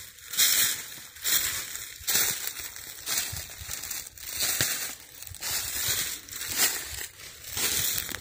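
Footsteps crunching through dry fallen leaves at a steady walking pace, about ten even steps.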